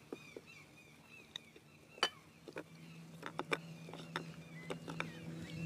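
Quiet lakeside ambience at an outdoor meal: small birds chirping, scattered clinks of cutlery and dishes, and a low steady engine drone that builds in the second half.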